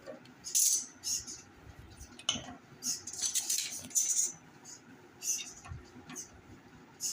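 Small metal parts clinking and rattling in irregular short bursts, as tools and fittings are handled.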